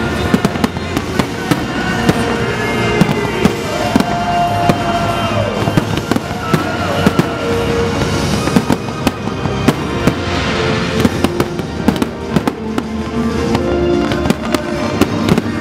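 Fireworks display going off, with many sharp bangs at irregular intervals throughout and music playing alongside.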